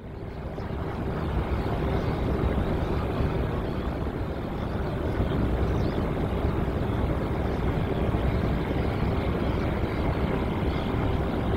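Jet airliner engine noise, a steady broad roar with a faint high whine in it, fading in from silence over the first second or two and then holding level.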